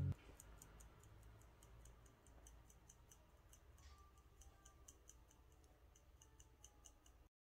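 Faint, even ticking, about four ticks a second, over a low hum.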